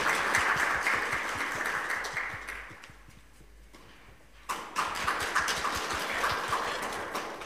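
Audience applauding, a dense patter of clapping that fades out about three seconds in, then starts again suddenly about a second and a half later and tails off near the end.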